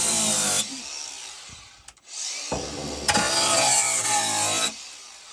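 Hand-held power grinder grinding wood to round off an edge. It comes in two bursts, a short one at the start and a longer one from about two and a half seconds in, and each time the motor winds down and fades after the burst.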